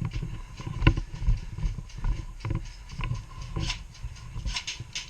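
Irregular thuds and a few sharp clicks, like footsteps and kit knocking as a player moves, with a sharper click about a second in.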